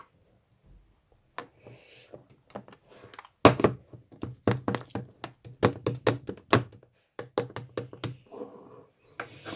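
A series of sharp taps and knocks: a few faint ones at first, then a rapid run of louder ones from about three and a half seconds in, with a short break around seven seconds.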